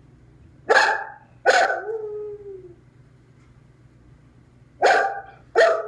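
English springer spaniel howling at being left alone, heard over a Skype video call. Two short howls come about a second in, the second trailing off in a falling tone, and two more come near the end.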